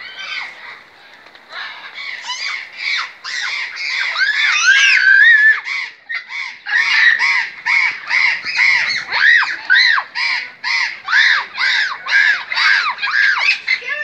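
Macaws squawking loudly: harsh calls in quick series, about three a second over the second half, after a longer wavering call about five seconds in.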